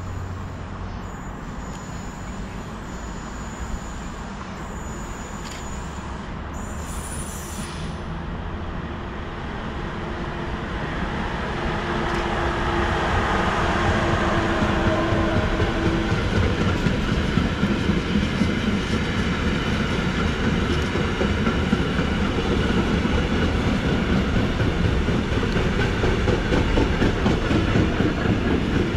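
A train approaching and running past on the station tracks: its rumble grows louder over the first half and stays loud while the cars go by.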